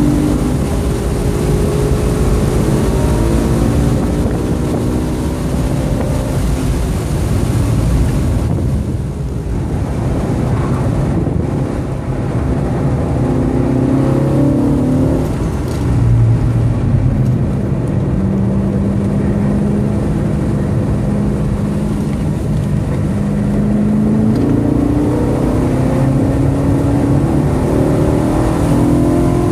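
2013 BMW M3's V8 engine heard from inside the cabin at speed. Its note falls as the car slows from about 80 mph for a corner, holds steady through the turn, then climbs as the car accelerates out onto the straight. Tyre and road noise run underneath.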